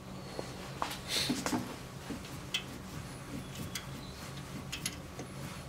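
Faint scattered clicks and ticks of a hand tap being turned to cut threads in a coolant pipe fitting's pin hole, over a steady low hum.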